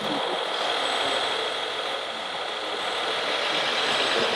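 Radio-controlled model trucks and construction machines running, a steady mechanical drone with a hiss.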